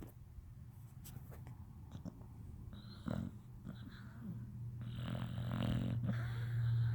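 A dog snoring: a low rumbling snore with rasping breaths about three seconds in and again from about five seconds on, getting louder toward the end.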